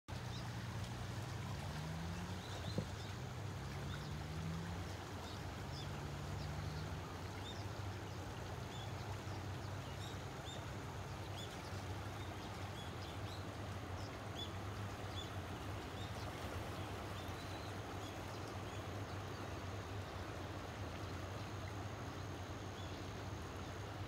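Steady rush of a river in flood, swollen and muddy. Short high chirps repeat throughout, a low hum rises and falls over the first seven seconds or so, and a single sharp tap comes about three seconds in.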